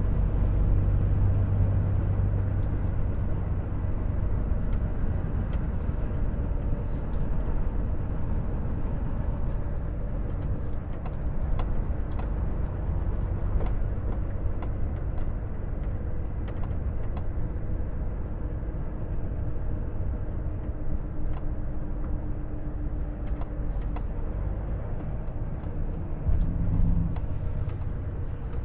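Volvo FH 460 truck's 13-litre straight-six diesel running steadily while driving, a low drone with road noise and scattered light clicks and knocks. It swells briefly about two seconds before the end.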